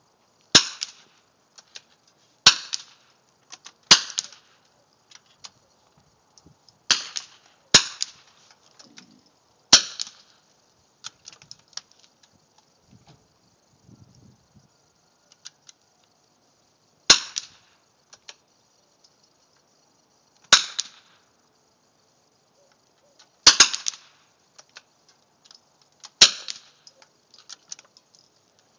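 Rifle shots from .22 rimfire benchrest rifles on a firing line: about ten sharp cracks at irregular intervals, each with a short echo. Two come almost together about 23 seconds in.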